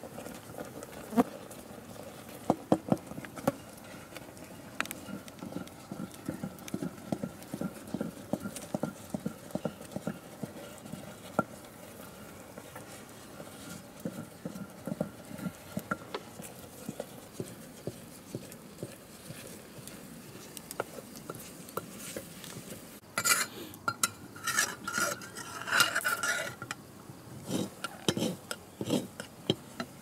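Metal ladle stirring a metal cooking pot on a wood fire, with repeated clinks and knocks against the pot. A louder spell of clattering and scraping comes a little over two-thirds of the way through.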